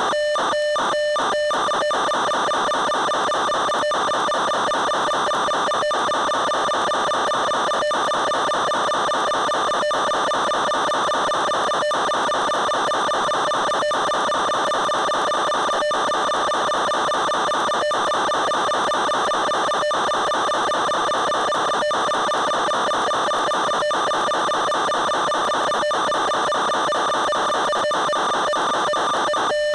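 Steady electronic buzz with strong overtones, broken by short dropouts: several a second near the start, then about one every two seconds. This is interference on the audio channel of an analog FPV video link, not the sound of the aircraft itself.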